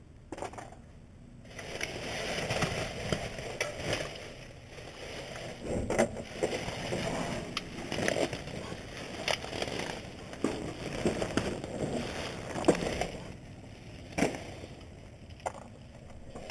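Black plastic trash bags rustling and crinkling as hands dig through a dumpster, with scattered knocks and clunks of objects being shifted. The rummaging dies down for the last few seconds.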